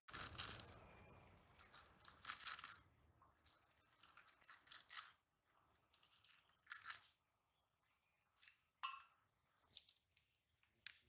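Fresh spinach stems snapped and leaves torn by hand: crisp, irregular crackling and rustling, busiest in the first few seconds and sparser after.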